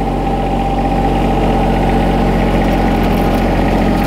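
John Deere X758 lawn tractor's 24-horsepower three-cylinder diesel engine running at a steady pitch as the mower drives off, with a steady high whine over it.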